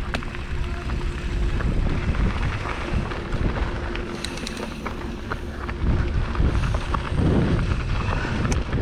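Wind buffeting the microphone as a low, steady rumble, with scattered light clicks and knocks.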